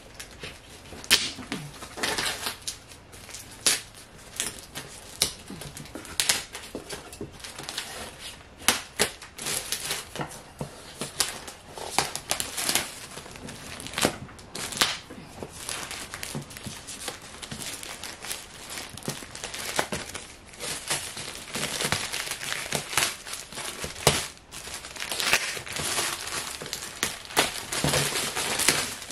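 Printed wrapping on a parcel box being torn and peeled off by hand, with irregular sharp crackles and short rips of crumpling wrapping.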